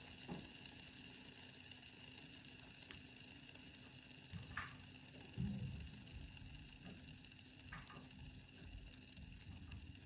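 Pop It fidget spinner spinning on in the hand, a quiet steady whir with no stops. A soft low thump about five and a half seconds in, and a couple of faint clicks.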